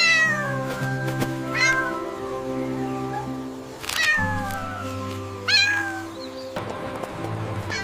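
A cat meowing about five times, short calls that alternately slide down and up in pitch, over background music with long held notes.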